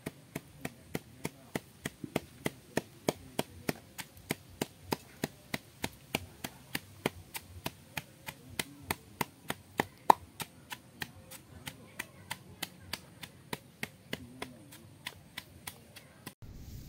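Knife chopping on a cutting board in a steady rhythm, about three strokes a second, with one harder stroke about ten seconds in; the chopping stops abruptly near the end.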